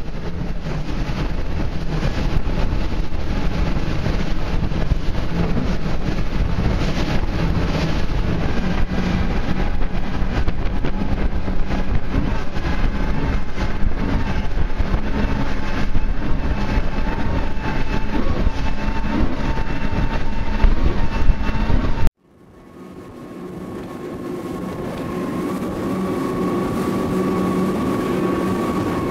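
Mercury Verado outboard engines running at high speed on planing boats, a loud steady engine rumble mixed with wind and water rush. About three-quarters of the way through it cuts off suddenly, then fades back in as a steadier engine drone.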